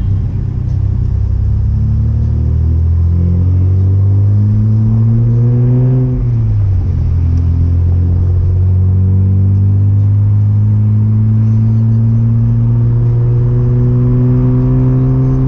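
Chevrolet Omega's naturally aspirated 3.0 12-valve inline-six (C30NE) pulling under acceleration through a 2.5-inch exhaust with two sport mufflers. The revs climb for about five seconds, drop quickly about six seconds in as it shifts up a gear, then climb slowly again.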